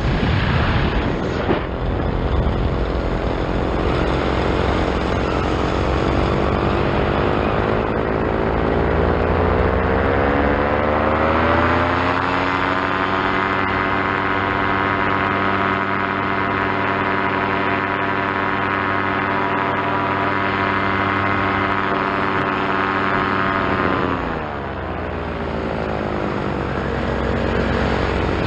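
A paramotor trike's two-stroke Vittorazi Moster engine and propeller running in flight. The engine note climbs over a few seconds to a steady high throttle and holds there for about twelve seconds. About 24 seconds in it drops abruptly as the throttle is pulled back, then starts to rise again near the end.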